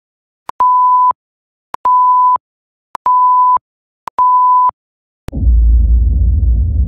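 Countdown-intro sound effect: four steady one-tone electronic beeps about a second and a quarter apart, each with a click just before it, then about five seconds in a deep low rumble that carries on.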